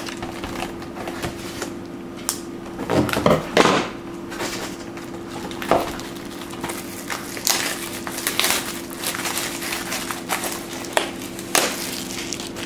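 Crinkling plastic wrapping and the handling of a cardboard trading-card box, in irregular rustles and clicks with a louder burst of crinkling about three seconds in. Shrink wrap is cut with scissors and a jumbo pack's plastic wrapper is handled, over a steady low hum.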